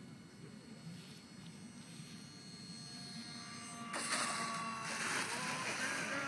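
Whine of the electric ducted fans on a model Boeing 777 airliner making its landing pass: several high steady tones that grow louder, then about four seconds in the sound jumps louder and rushier as the plane passes close, with the pitch beginning to drop near the end.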